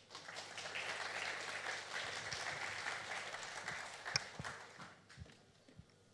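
Audience applauding, dying away after about five seconds, with a sharp knock about four seconds in.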